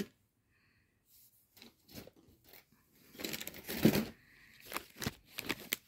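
Packaging rustling and crinkling as purchases are handled, in a few bursts starting about three seconds in.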